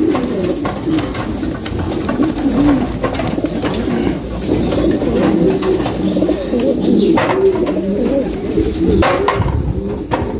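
Domestic pigeons cooing continuously, several birds overlapping, with two brief sharp noises about seven and nine seconds in.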